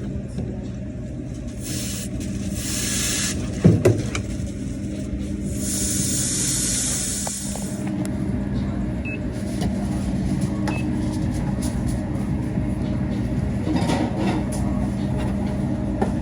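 Refrigeration unit of a Kairak refrigerated table top running with a steady hum, the unit whose noise is being chased. Two bursts of hiss come about two seconds and about five and a half seconds in, and there is a sharp knock near four seconds.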